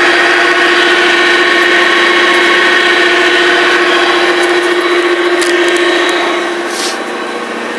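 MerCruiser 350 Mag MPI V8 sterndrive engine running at idle in reverse gear, a steady even hum that gets a little quieter about six and a half seconds in.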